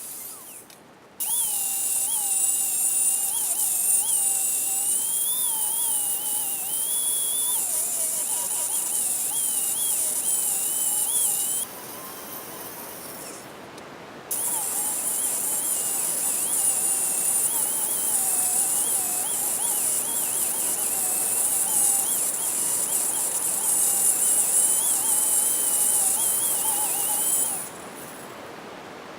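Angle grinder grinding down weld on a steel anvil, a steady high whine and hiss whose pitch wavers as the disc is pressed and eased. It breaks off abruptly twice, once about halfway and again near the end.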